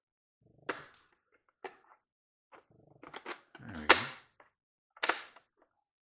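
Plastic clicks and knocks from an MTH Rail King O-gauge toy boxcar being handled as its sliding doors are worked open: about half a dozen sharp clacks, the loudest about four seconds in.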